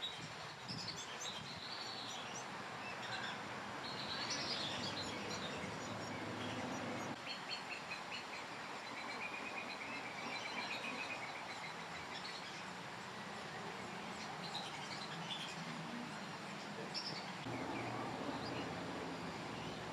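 Several birds chirping and calling in short high notes, with a quick run of repeated notes about halfway through, over a steady background noise.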